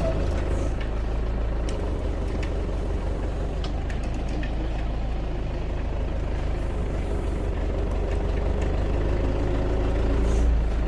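Isuzu Elf crane truck's engine running steadily at idle-like speed, a low even hum that swells slightly near the end.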